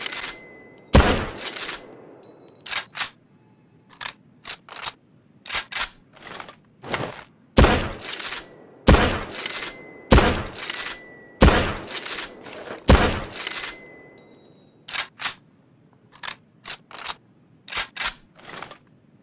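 Mosin-Nagant M91/30 bolt-action rifle firing single shots, each with a ringing tail: one shot early, then a run of about five roughly a second and a half apart in the middle. Between the shots come clusters of short, sharp metallic clicks and clacks as the bolt is worked.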